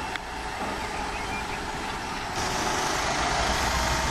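Concrete mixer truck's diesel engine running steadily on a construction site, growing a little louder with more hiss a little past halfway.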